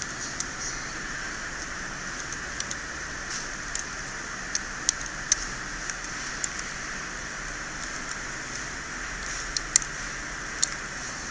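Irregular small, sharp clicks and taps, like tools and small parts being handled on a phone repair bench, over a steady hiss.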